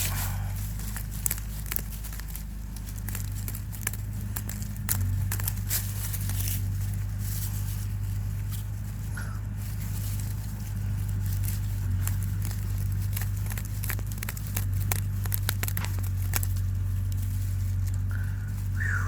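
A tree branch used as a digging stick, scraping and prying in soil and roots to dig up deodeok: irregular crackling clicks and scrapes over a steady low hum.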